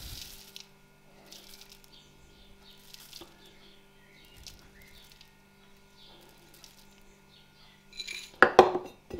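Rolled oats poured from a glass jar into a plastic bowl on a kitchen scale: a short rush of flakes at the start, then only faint little trickles as the last grams are topped up. Near the end come two loud clattering knocks with a glassy ring, as the glass jar is handled and set down.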